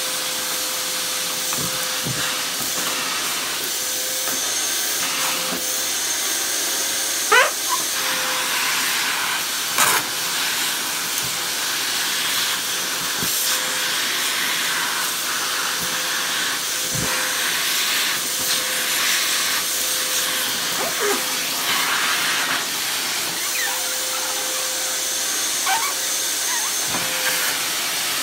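Electrolux 725 vacuum cleaner running steadily: an even rush of air with a faint steady hum. A few sharp clicks and rattles break through, the loudest about 7 and 10 seconds in.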